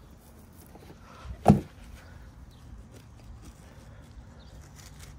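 Light handling of plastic wrap with faint scattered crinkles, and one dull thump about a second and a half in.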